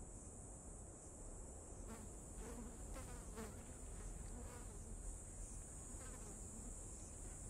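Insects droning steadily at a high pitch, faint, with a few soft short sounds scattered through it from about two seconds in.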